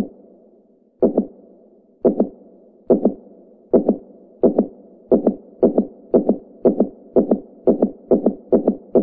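Heartbeat, each beat a double lub-dub thump, speeding up steadily from about one beat a second to about two a second, over a steady low hiss.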